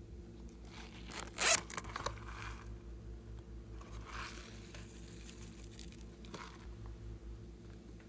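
Rubbing and scraping of a rubbery cactus-shaped object turned over in the hands, in a few short strokes, the loudest about a second and a half in. A steady low hum runs underneath.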